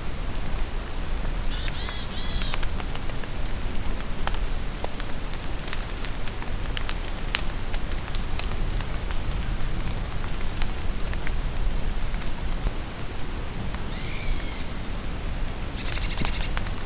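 Steady rain falling in a forest, with drops ticking, and birds calling: one call about two seconds in and two more near the end, with faint high peeps in between.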